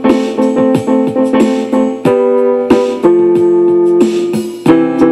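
Electronic keyboard played by hand: quick runs of struck chords, then longer held chords from about two seconds in, then quick repeated chords again near the end.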